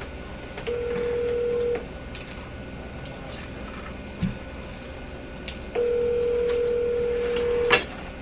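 Telephone ringback tone heard over a phone's speakerphone: two rings of a steady dual tone, the first about a second long and the second about two seconds long, the call ringing through at the other end. The second ring cuts off with a sharp click.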